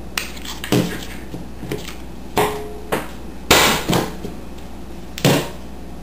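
Handheld Creative Memories spider craft punch being set on black cardstock and pressed through it: four separate plastic knocks and clunks, the loudest and longest about three and a half seconds in.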